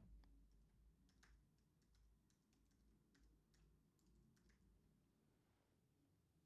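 Near silence with faint, irregular clicks of typing on a computer keyboard.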